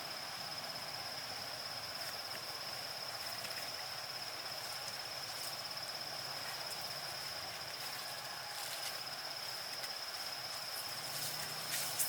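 Insects trilling, one steady high unbroken tone over faint background noise, with a few sharp clicks near the end.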